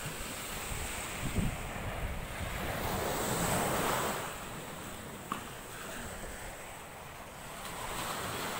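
Surf washing on the shore with wind buffeting the microphone; the rush of the waves swells and fades, loudest about halfway through.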